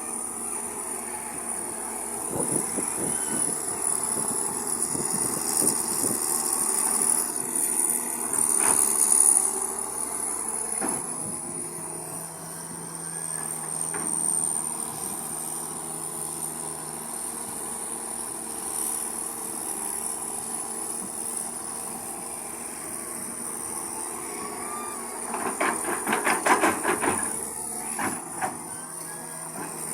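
Excavator's diesel engine running under load as it digs, with a steady high-pitched whine over it. Several seconds before the end comes a quick run of metallic clanks and scrapes.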